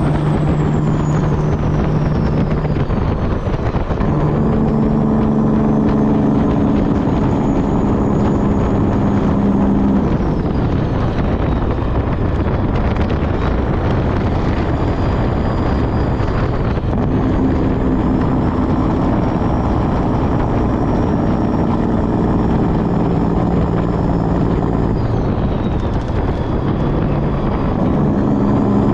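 Semi truck's diesel engine and road noise heard from inside the cab while driving, a steady drone whose pitch shifts every several seconds, with a faint high whine that rises and falls.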